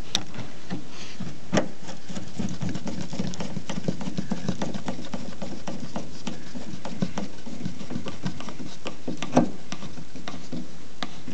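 Hand work on a pickup's interior door trim: scattered small clicks, taps and rubbing of a screwdriver and plastic trim parts being handled, with a couple of sharper knocks about a second and a half in and near the end.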